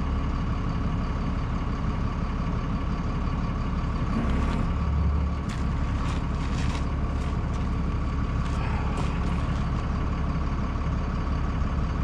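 Heavy diesel engine idling steadily, with a few light metal clinks around the middle.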